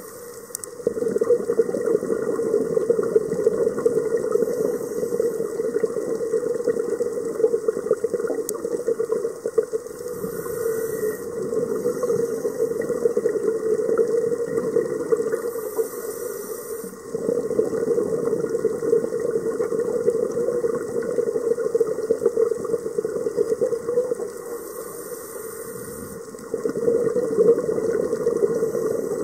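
Scuba diver's breathing through a regulator, heard underwater: long rushing bursts of exhaled bubbles, each several seconds long, separated by shorter quieter inhalations with a thin hiss.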